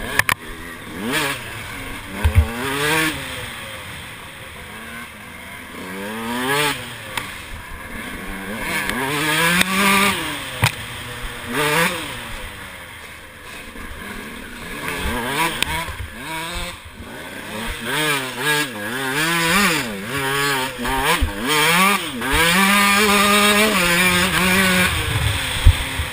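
KTM 125 EXC's two-stroke single-cylinder engine being ridden hard, revving up and down over and over, with sharp knocks scattered through. Near the end it holds high revs more steadily.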